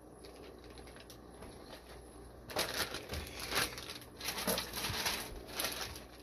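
Plastic fish shipping bags crinkling and rustling as they are handled, an irregular crackle that starts about two and a half seconds in.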